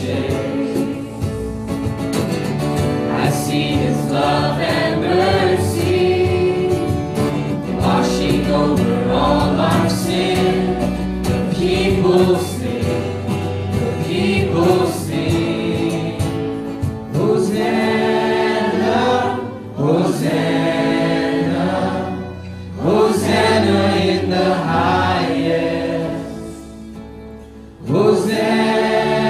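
Live worship music: a woman and men singing a contemporary worship song together over strummed acoustic guitars and an upright bass, with the congregation singing along. The music drops softer a few seconds before the end, then the voices come back in strongly.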